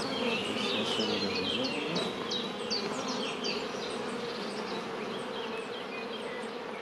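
Honeybees buzzing around an opened hive, a steady hum. Over it, short high chirps repeat about three times a second.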